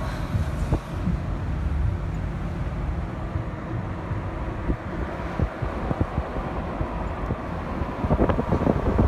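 Car driving along, heard from inside: a steady low road and engine rumble, with wind buffeting the microphone that turns into gusty crackling near the end.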